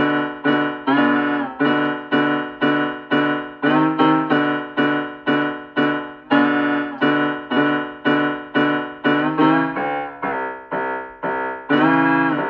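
Piano playing a simple tune of short struck chords, about two a second, each fading quickly, with a few chords held a little longer.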